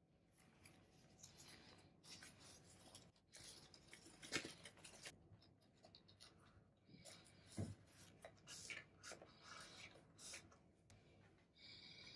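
Faint rustling and crinkling of a softened lotus leaf as it is folded and pressed shut by hand, with a few sharper rustles and light scrapes.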